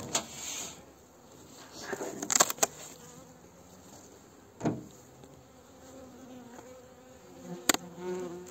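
Honeybees buzzing at an opened hive, with a few sharp knocks and clacks from the hive parts being lifted and handled.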